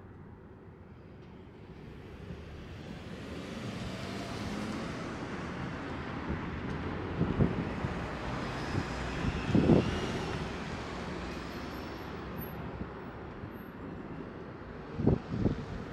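City street traffic: a vehicle passing, its noise building over the first few seconds and easing off after about ten seconds, with a couple of bumps of wind on the microphone near the end.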